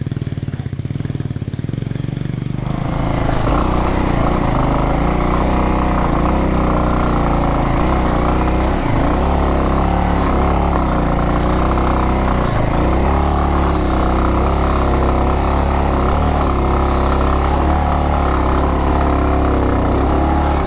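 Motorcycle engine idling with a low, even pulse, then revved hard about three seconds in and held at high revs under load, its pitch wavering up and down, as on a steep climb where the bike struggles for grip.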